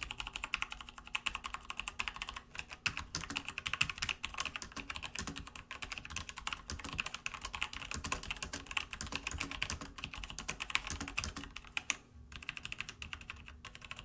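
Typing on a Logitech G413 mechanical keyboard with Romer-G switches: a fast, steady run of keystroke clicks, with a brief pause about twelve seconds in.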